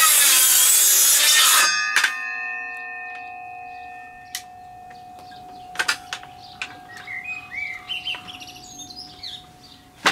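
Makita DHS680Z cordless brushless circular saw finishing a cut through wood: the loud cutting noise stops with a sharp clack about two seconds in, and the saw fades away over the next couple of seconds. Later a few light knocks and birds chirping.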